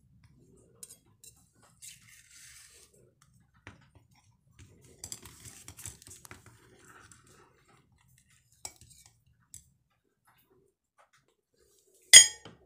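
Small stainless steel cups clicking and scraping as they are handled, with a blade scraping around the inside of a cup to loosen a steamed rice-flour cake. Near the end, one loud ringing clink of a steel cup striking a ceramic plate as the cake is turned out.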